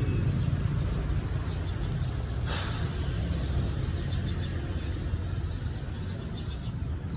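Steady low rumble of outdoor noise, with a brief hissing swell about two and a half seconds in.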